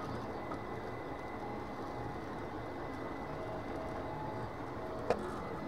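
Desktop 3D printers printing, the closest an FLSun delta: a steady fan hum under short stepper-motor tones that change pitch as the print head moves. One sharp click about five seconds in.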